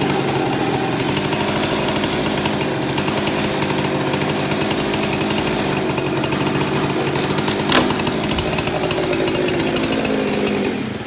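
Engine-driven sawmill saw running under load, cutting wood, with a steady engine note and dense cutting noise. A single sharp crack comes about eight seconds in, and near the end the engine note sinks and the sound falls away.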